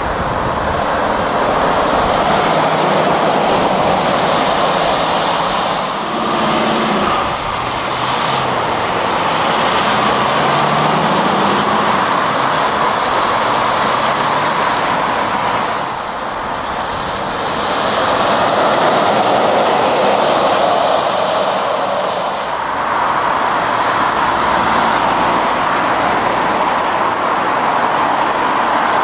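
Road traffic passing through a motorway roundabout: a steady noise of tyres and engines from lorries and cars. In the first half a heavy lorry's diesel engine can be heard with its note rising as it accelerates away.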